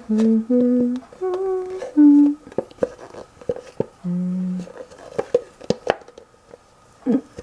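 A woman humming a tune in a few separate held notes, then one more low note about four seconds in. Between and after the notes, a spoon clicks and scrapes inside a nearly empty Nutella jar as the last of the spread is dug out.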